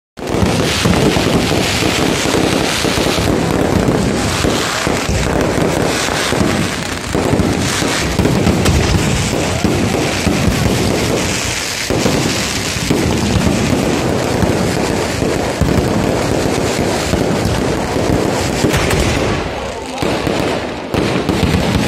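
Fireworks display: a dense, unbroken barrage of bangs and crackling from aerial shells and crackling stars bursting overhead.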